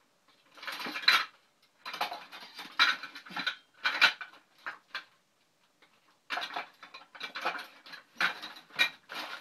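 Metal kitchen utensils clattering and clinking as they are rummaged through in search of a whisk, in several irregular bursts with a short lull about five seconds in.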